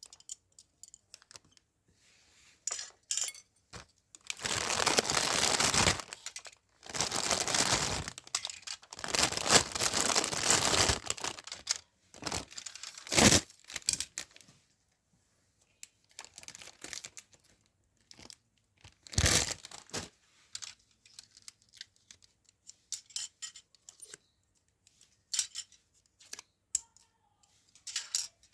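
Parcel packaging being torn open and crinkled by hand: two long stretches of ripping in the first half, then scattered rustles and light clicks.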